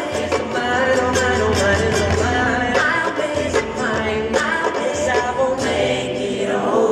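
Live acoustic pop-rock band: several voices singing together over acoustic guitar, ukulele, cello and upright bass. The low end thins out near the end.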